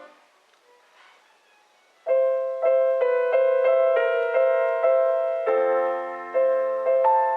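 Acoustic piano: a chord dies away into a pause of about two seconds. The piano then comes back in with quick, evenly repeated chords, about three a second.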